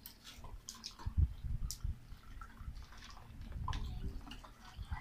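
Eating sounds from spicy crab being eaten by hand: scattered wet clicks and cracks of the shells being picked apart, with chewing. Dull low thumps come about a second in and again near four seconds.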